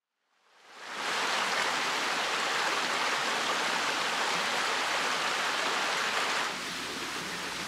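Small rocky stream babbling and splashing over stones and low cascades, a steady rush that fades in over the first second and drops somewhat quieter about six and a half seconds in.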